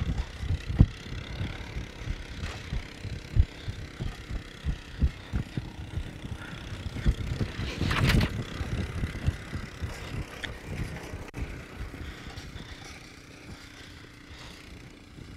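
Irregular low thumps of a horse moving through soft arena sand, with wind buffeting the microphone and the faint running of a towing ATV. A brief louder rush of noise comes about eight seconds in, as a rope loop is thrown.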